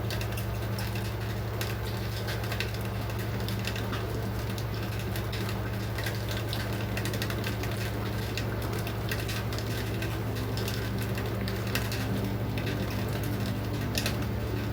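LG 8.0 kg washing machine running mid-cycle: a steady low motor hum with frequent small clicks and rattles.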